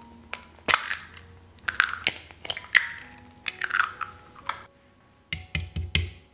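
Two raw eggs cracked open onto a ceramic plate, a cluster of sharp shell cracks and crackles with each egg. About five seconds in, a fork starts beating the eggs with rapid taps against the plate. Soft background music underneath.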